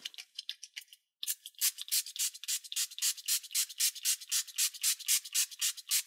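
Trigger spray bottle misting water onto a finished Aquabeads design, pumped in quick repeated squirts of about four or five a second. This is the step that wets the beads so they fuse together.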